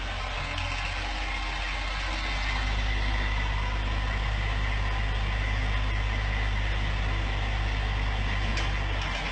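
A heavy machine's engine running steadily with a low hum, getting a little louder about two and a half seconds in.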